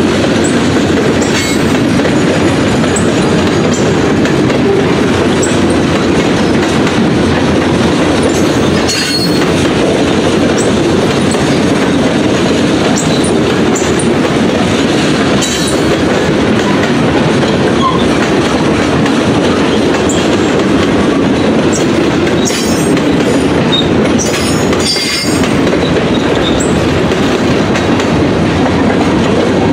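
Railroad cars rolling past on the rails: a loud, steady rumble of wheels on track, with a few knocks and brief high wheel squeals now and then.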